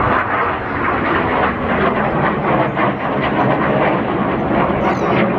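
BAE Hawk T1 jet trainer flying past, its single Adour turbofan making steady, loud jet noise.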